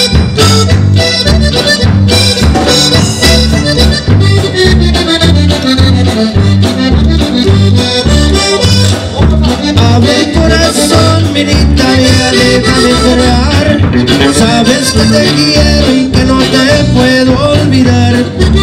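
Conjunto band playing an instrumental break: accordion out front over bajo quinto, electric bass and drums, with a steady, even bass beat.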